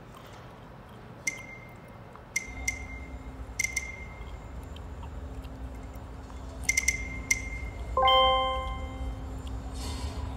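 Short ticking clicks, each with a brief ringing tone, come in small clusters. About eight seconds in, a louder chime of several tones sounds. These are interface sounds from a VR training program, played over the hall's speakers. A low steady hum joins about two and a half seconds in.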